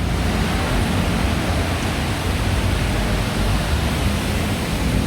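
Heavy downpour of rain pouring steadily, an even hiss with a deep rumble underneath.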